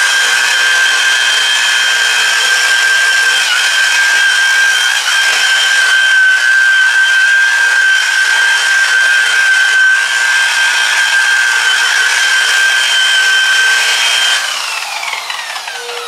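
Electric variable-speed rotary buffer with a wool pad running at speed against car paint: a steady high whine. About 14 seconds in it is switched off and the whine falls in pitch as the pad winds down.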